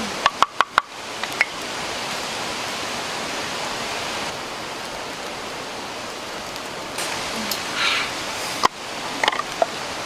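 A wooden pestle knocks quickly about five times in a wooden mortar, then stops; after that there is a steady hiss of running or boiling water.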